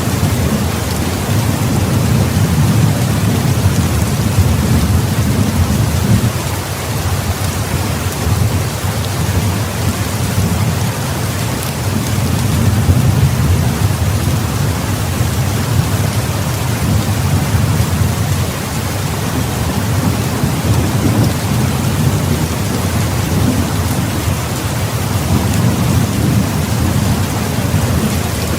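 Heavy rain falling steadily, with a deep rumble of rolling thunder that swells and fades several times.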